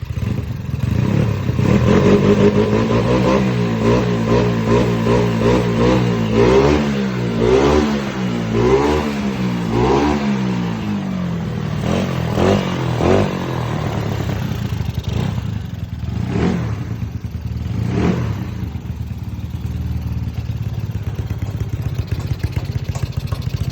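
Yamaha Mio scooter's single-cylinder four-stroke engine, bored up to 58 mm, running and revved in repeated quick throttle blips, its pitch rising and falling, for roughly the first half. After that it mostly idles steadily, with two more short revs.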